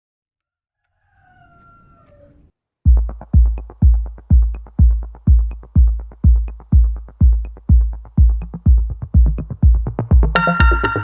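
Electronic background music: after a short faint gliding call, a steady heavy kick drum comes in, about two beats a second with a light tick on each, and a bright synthesizer chord joins near the end.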